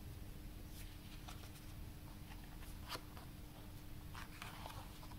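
Faint paper rustling as the pages of a booklet are handled and turned, with a sharper tap about three seconds in.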